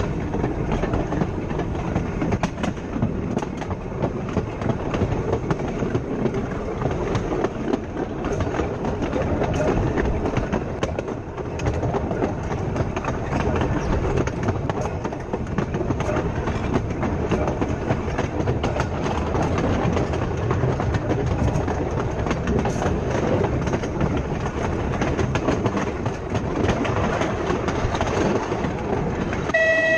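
Blackpool Boat tram car 606 running along the line: a steady rumble of steel wheels on the rails, broken by frequent irregular clicks and clacks.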